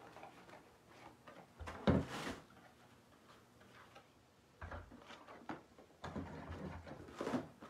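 Handling noises as a roll of ribbon is set aside: a dull thump with a rustle about two seconds in, which is the loudest, another thump near five seconds, then more rustling and knocking near the end.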